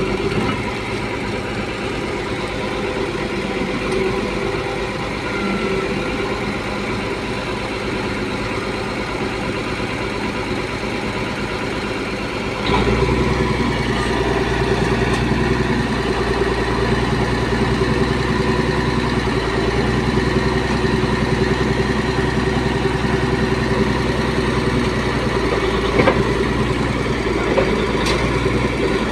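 Heavy logging machine's engine running steadily; about thirteen seconds in its low end grows stronger and it gets louder, as the machine comes under more load or nearer.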